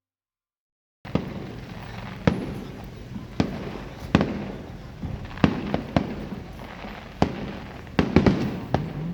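Fireworks going off, starting about a second in: a dozen or so sharp bangs at irregular intervals, some in quick clusters near the end, over a steady background rumble.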